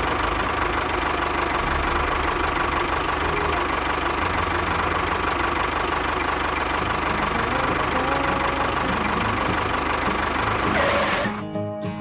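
Tractor engine running steadily with a knocking chug, stopping about eleven seconds in as guitar music starts.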